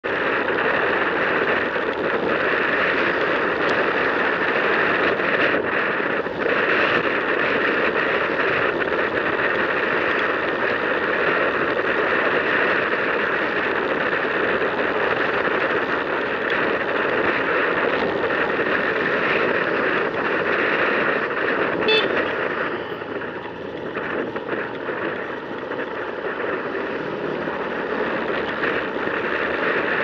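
Steady wind and engine noise from a motor scooter riding in street traffic, with one short horn toot about two-thirds of the way through, after which the noise eases for a few seconds.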